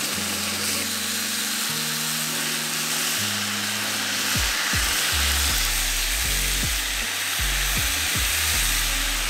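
Thin slices of beef brisket sizzling in a hot frying pan as they are added and spread out with wooden chopsticks, with background music playing underneath.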